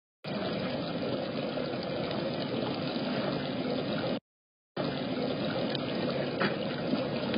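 Small rock waterfall splashing steadily into a pond. The sound cuts out for about half a second around four seconds in.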